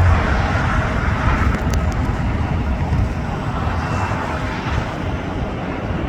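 Steady low rumble of distant vehicle noise, easing slightly after the middle.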